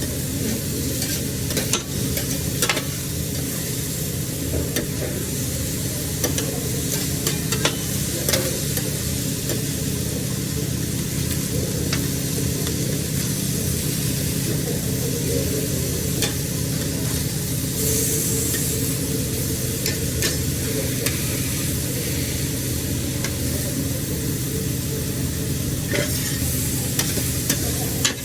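Seafood sizzling and frying on a hot grill, a steady sizzle broken by scattered sharp crackles and clicks, over a steady low hum.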